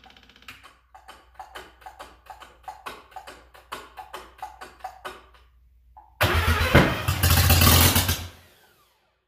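Mazda 12A rotary engine being cranked on its starter, turning over with an even chuff about four times a second for about five seconds. About six seconds in it catches and runs loud for two seconds, then dies.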